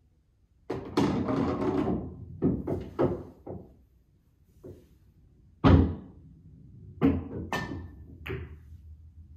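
Pool balls on a Diamond 9-foot Pro-Am table being struck and pocketed: a ball rumbles for over a second just under a second in, followed by a few fading knocks as it drops and settles. A second shot brings a sharp, loud clack about six seconds in, then several lighter ball knocks.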